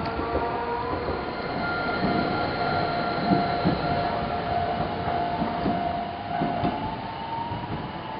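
Toden Arakawa Line streetcar running on its rails: a steady whine held for several seconds and rising slightly near the end, over a low rumble with scattered knocks from the wheels.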